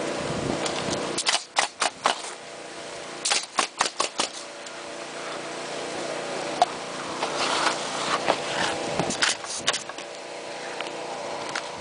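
Pneumatic coil roofing nailers firing nails into asphalt shingles: quick runs of sharp shots, about four a second in, five or six around three seconds in, and more scattered shots later, over a steady hum.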